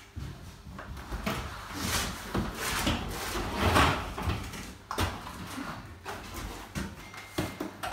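Long straight edge drawn over freshly applied gypsum multi-finish plaster on a wall, flattening and filling the wet skim coat: a series of rasping scraping strokes, loudest about halfway, with a couple of sharp knocks later on.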